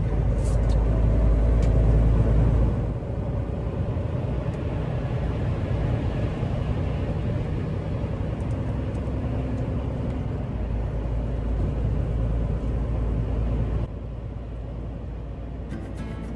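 Inside a semi-truck's cab driving on a wet highway in rain: a steady low engine and tyre rumble with road-spray noise, and a few faint clicks near the start. The level drops suddenly about fourteen seconds in.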